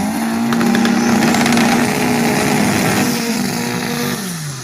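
Turbocharged front-wheel-drive drag car's engine revved up and held at high rpm during a burnout, then the revs drop away about four seconds in.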